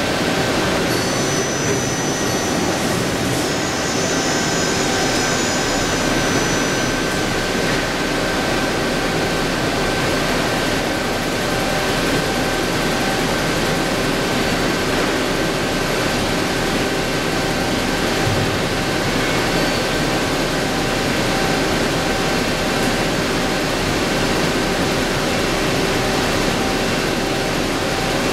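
CNC vertical turning lathe machining a cast-iron brake drum: a steady hiss of spinning work and coolant spray with several steady whining tones from the spindle drive, at an even level throughout.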